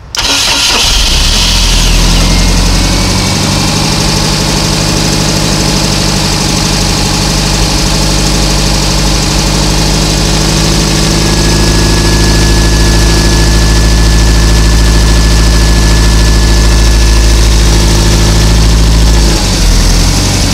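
Mercruiser 470 3.7-litre four-cylinder marine engine starting and settling into a steady idle, its speed dipping briefly near the end. It is running with the choke held closed, which it needs even when warm, a sign that the carburetor's idle jets are probably obstructed.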